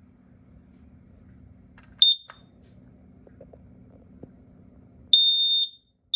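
Kidde KN-COSM-B combination smoke and carbon monoxide alarm being tested. It gives one short, loud, high-pitched chirp about two seconds in. About five seconds in its horn starts the fire-alarm pattern, a half-second high beep with the next one just beginning.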